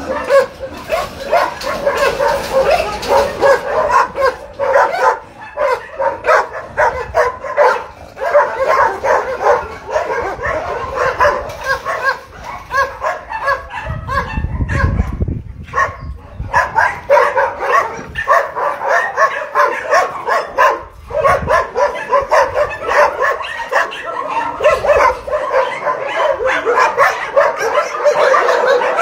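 Many shelter dogs barking and yelping at once in a continuous, overlapping chorus.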